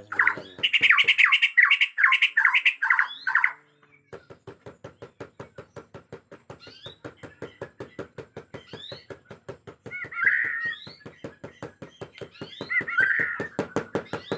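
Bornean white-crowned shama (Murai Batu Borneo) singing agitatedly: a loud, rapid run of falling whistled notes, then a long, steady, fast ticking chatter of about six ticks a second, with short whistled phrases breaking in twice near the end.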